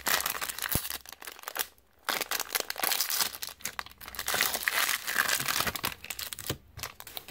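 Plastic trading-card pack wrapper crinkling as it is torn open by hand, with a short pause about two seconds in.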